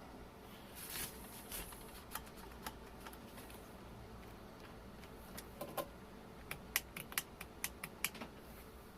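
Light, scattered clicks and taps of plastic blower parts and housing pieces being handled and fitted together, with a quick run of about ten sharp clicks past the middle.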